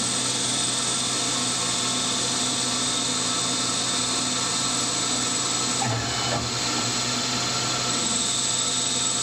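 Metal lathe turning a taper under power, its carriage fed by stepper-driven ball screws. The spindle runs steadily while the tool cuts metal, with a steady high whine over the running.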